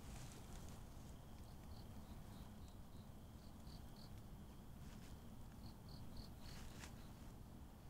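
Faint cricket chirping, short evenly spaced chirps about three a second, in two runs with a pause around the middle, over low background hiss.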